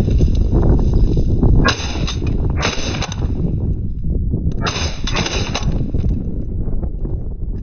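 Wind rumbling on the microphone, broken by three short bursts of noise: about two seconds in, around three seconds, and near five seconds.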